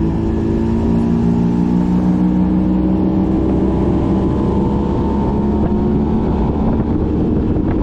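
Boat outboard motor running under way, a steady engine note that eases slightly lower in pitch, with rushing wind and water.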